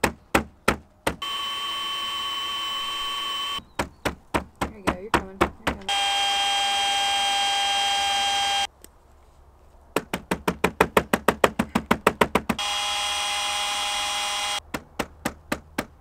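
A power tool running in three steady whines of two to three seconds each, starting and stopping abruptly, with runs of sharp, evenly spaced clicks between them, about four a second, quickening to about six a second in the longest run.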